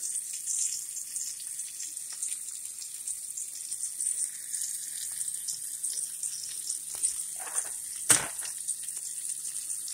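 Food sizzling and crackling in a frying pan, with one sharp click about eight seconds in.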